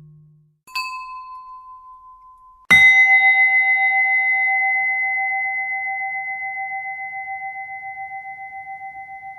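Two struck bells: a small, higher bell rings briefly about a second in, then a larger, lower bell is struck near three seconds in. The larger bell is the loudest sound and rings on long with a steady wavering pulse as it slowly fades.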